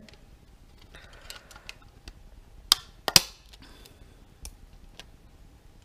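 Clear plastic window insert being pried and pressed into the hard plastic body shell of an RC truck with a small screwdriver: light plastic ticks and scrapes, with two sharp snaps about half a second apart near the middle.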